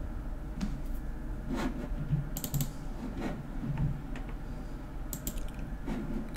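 Scattered clicks from a computer mouse and keyboard, irregular, with a quick run of clicks about five seconds in, over a low steady hum.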